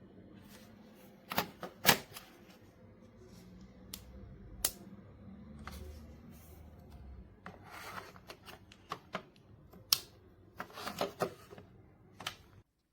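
Scattered sharp clicks and short bursts of rustling, like something small being handled, over a faint low hum.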